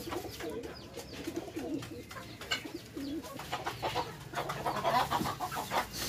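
Pigeons cooing over and over in low, wavering calls, with scattered light taps and clicks.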